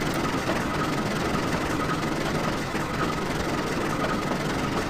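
Train running: a steady, even mechanical noise with a faint high tone held throughout.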